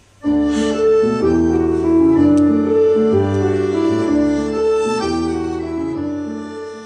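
Piano accordion playing a melody of held notes over bass chords. It starts suddenly about a quarter second in and slowly dies away near the end.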